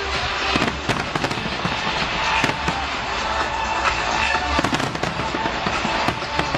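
Fireworks going off in quick succession, a dense run of sharp bangs and crackles, with music playing underneath.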